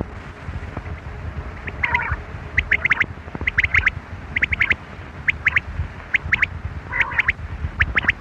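Quail calling: short groups of two or three sharp, high notes repeated over and over, about once or twice a second, over a steady low rumble.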